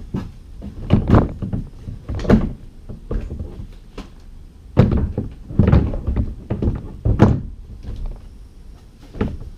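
Bonafide SS127 kayak seat back being moved through its positions on the new knuckle plates, giving a series of about six thunks and knocks a second or so apart as it locks into each position.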